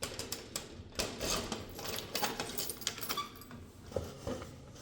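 Cardboard parcel being handled and opened: a string of irregular light clicks, taps and rustles.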